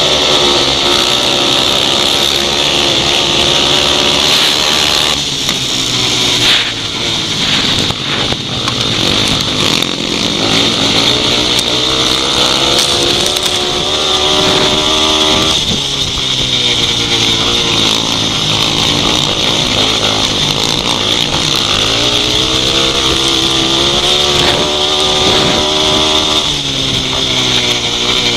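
Upright grasstrack racing motorcycle's single-cylinder engine running flat out under race load, heard from on board the bike. Its pitch rises and falls again and again as the rider opens and shuts the throttle for the corners and straights, with a brief drop about seven seconds in.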